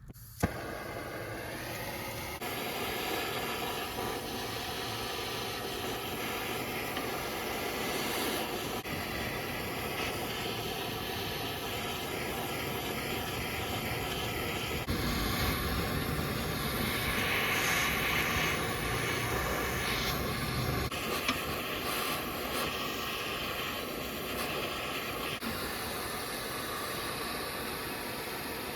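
Gas torch burning with a steady hiss as it melts the rubber out of a suspension control-arm bushing, after a single sharp click at the start.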